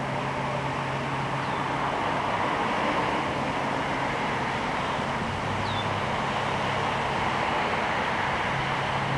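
Steady outdoor background rumble and hiss with a low droning hum that shifts slightly in pitch about five seconds in. Two faint, short, high falling chirps come about a second and a half in and again near six seconds.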